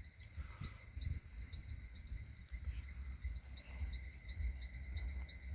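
Insects chirping in a steady, rapid, even pulse, with a low uneven rumble underneath.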